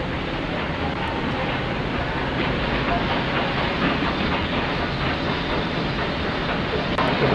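Steady railway-station train noise on an old film soundtrack, dull-sounding with the high end cut off.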